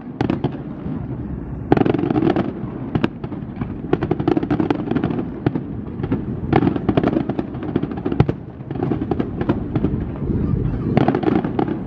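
Fireworks display: a dense, continuous run of bangs and crackling, with louder clusters of reports about two, six and a half, and eleven seconds in.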